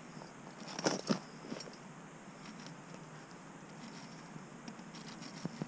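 Faint crunching and scraping of snow and slush ice at an ice-fishing hole as the fisherman works his hand over it. There is a short cluster of sharper crunches about a second in and a couple more near the end, over a faint steady hiss.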